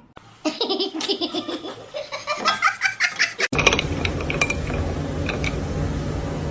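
A person laughing in short, broken pulses for about three seconds, cut off suddenly and followed by a steady low rumbling background noise with a few faint clicks.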